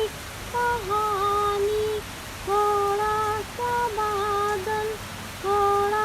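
A woman humming a slow, wordless melody in short phrases, over a steady hiss of rain.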